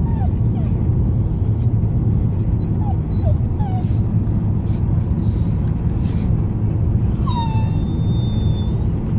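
A dog whimpering in short high whines, several near the start and around three seconds in and a longer falling one about seven and a half seconds in, over the steady rumble of wind and road noise in a moving car.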